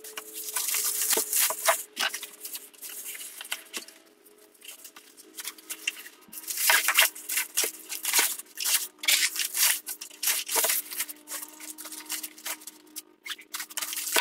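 A black fabric carry bag and the foam pads and straps of a kayak roof rack kit rustling and crinkling as they are stuffed into the bag. The rustling comes in bursts with small clicks, heaviest at the start and again in the middle, over a faint steady hum.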